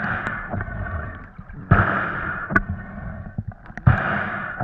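Muffled underwater water rush and gurgling picked up by a waterproof action camera, swelling in three surges about two seconds apart with the freediver's fin kicks.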